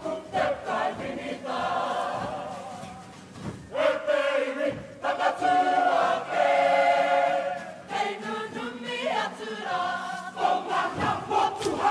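Kapa haka group singing and chanting in unison in Māori, men's and women's voices together, with long held notes around the middle. Sharp rhythmic beats sound under the singing at the start and again near the end.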